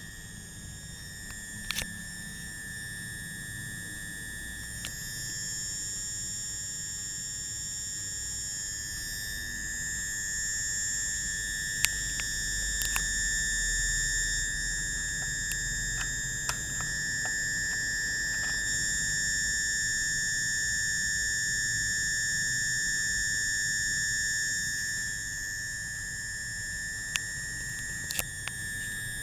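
Steady high-pitched electronic whine of several held tones from a powered circuit driving transformer and coil windings. The upper tones grow louder about five seconds in and ease back near the end, with a few faint clicks.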